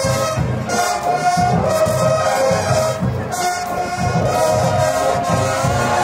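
Brass music with a pulsing drumbeat.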